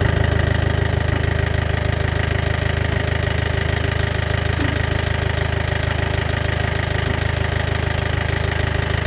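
Vehicle engine idling steadily: a low, even drone that does not rise or fall.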